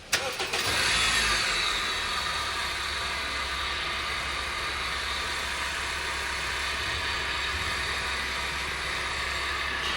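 A 2016 Honda Civic engine comes on suddenly and settles into a steady idle, with a steady high-pitched bearing noise from the belt-driven accessories. The noise is the sign of worn bearings in the water pump and the drive-belt auto-tensioner.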